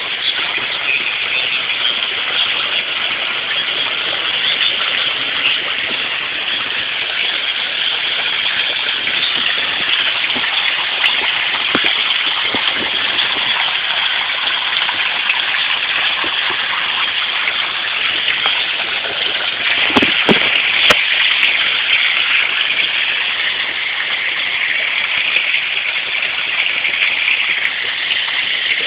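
Water splashing and running steadily in a small backyard water feature, with a few brief knocks about two-thirds of the way through.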